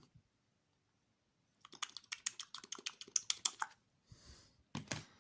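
Small hard plastic and metal parts of an RC truck's rear suspension clicking and rattling as they are handled, a quick run of light clicks lasting about two seconds, then a short rustle and one sharper click near the end.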